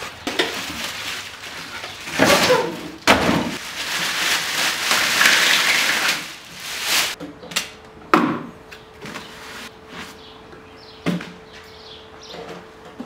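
Plastic wrapping and cardboard rustling and crinkling as a small metal oven is unpacked from its box, followed by a few sharp knocks as the steel oven is handled and its door is opened.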